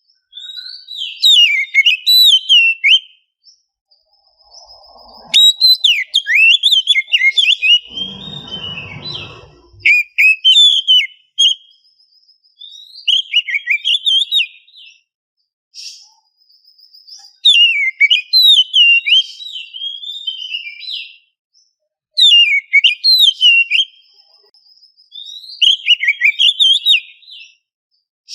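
Oriental magpie-robin singing in repeated bursts of loud, varied whistled and chattering phrases, each a second or two long with short pauses between. A brief rustling noise comes about eight seconds in.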